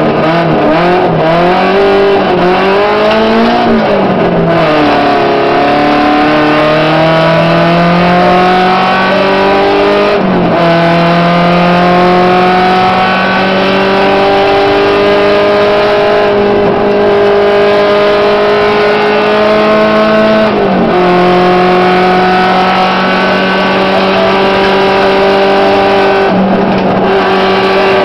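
Volkswagen Gol rally car engine heard from inside the cabin, driven hard on a gravel stage. For the first few seconds the revs rise and fall. The engine then pulls through the gears, its pitch climbing steadily in each gear and dropping sharply at upshifts about 4, 10, 21 and 26 seconds in.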